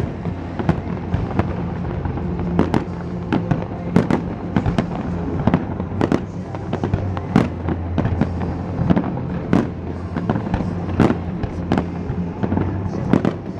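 Aerial fireworks bursting in quick succession, sharp bangs and cracks coming irregularly about one and a half times a second, over a steady low drone.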